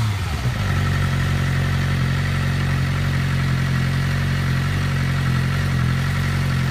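Engine idling steadily, settling back from a rev in the first half second. No whine or cam chain noise is heard; the owner says both are gone.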